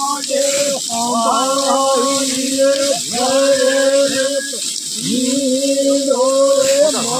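A voice singing a slow melody in long held notes, several in a row with short breaks between them.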